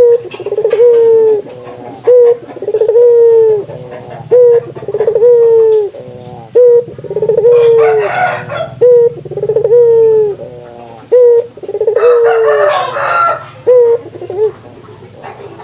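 Puter (Barbary dove) cooing over and over: a short note followed by a longer, falling coo, repeating about every two seconds. Two rougher, noisier calls break in, about halfway through and again near the end.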